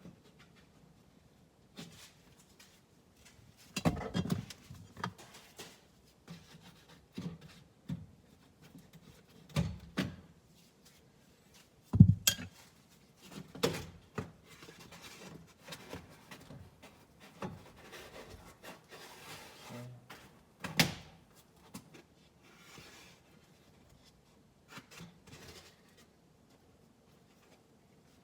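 Hands working on car door parts: scattered knocks and clicks of plastic and metal with rubbing and rustling between them, the loudest knock about twelve seconds in.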